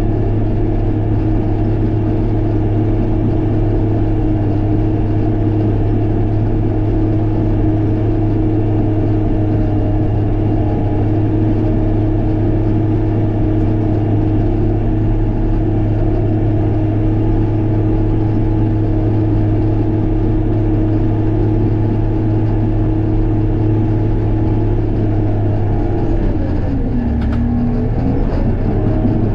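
A vehicle engine running steadily, its pitch dropping and then climbing again near the end.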